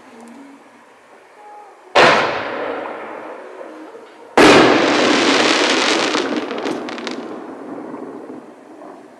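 Two aerial artillery-shell bursts from the Koto Collection, the first about two seconds in and a louder one a couple of seconds later. After the second bang comes a long fading rush with a patter of crackling.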